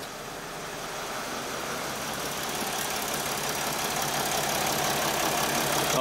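Mercedes Sprinter's 3.0-litre V6 diesel idling steadily, growing gradually louder, with a new cylinder-one injector fitted and coded. It runs smoothly, no longer misfiring.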